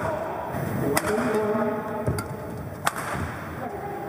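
Badminton racket strings striking the shuttlecock: two sharp cracks about two seconds apart, over the hall's steady background noise.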